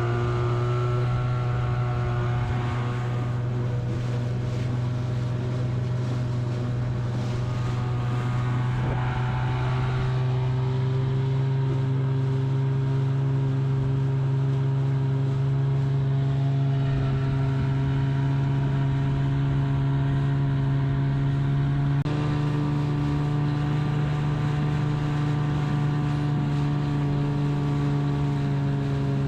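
Boat engine running steadily under way, its pitch stepping up slightly about a third of the way in and again about three-quarters through.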